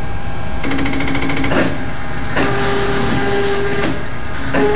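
Stepper motors of a Probotix Monster-driven CNC gantry whining as they move the torch head, the tone jumping to a new pitch every second or so as the machine changes speed and direction. About a second in there is a fast, even clicking from the motors. The owner says the motors still need tuning to run smoother.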